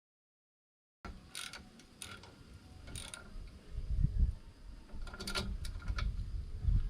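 Metal parts of an aluminium bike carrier being handled and fitted: a few sharp clicks and clinks with duller handling thumps, after about a second of dead silence.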